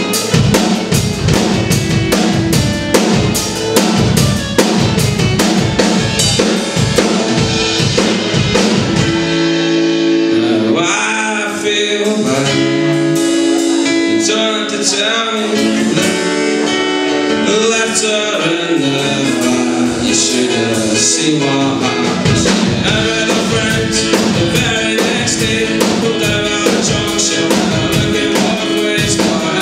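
A live acoustic guitar and drum kit playing a song together. About ten seconds in, the drums drop away to leave ringing strummed guitar chords, then come back more lightly with cymbal hits.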